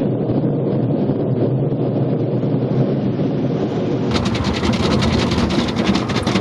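Car wash running, heard from inside the car: a steady low rumble of spray and machinery. About four seconds in it changes abruptly to a brighter, louder hiss with a fast, even pattering, like water or brushes beating on the car body.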